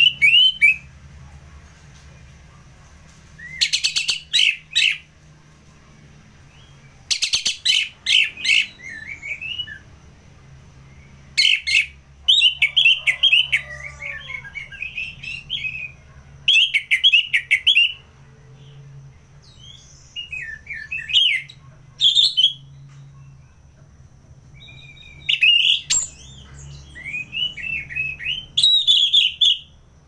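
Orange-headed thrush singing: loud phrases of rapid, varied whistled warbling with sharp scratchy notes, one burst every few seconds with short pauses between, over a faint low hum.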